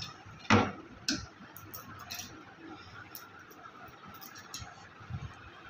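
A sharp knock about half a second in and a lighter one about a second later, then a few faint ticks over quiet room tone.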